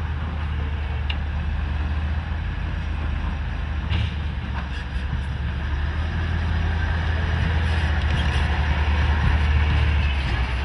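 Heavy tracked all-terrain vehicle's diesel engine running with a steady low rumble, a few short knocks over it, growing a little louder late on.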